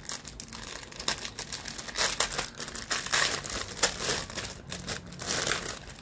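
Clear plastic bag of small charms crinkling irregularly as hands handle and open it.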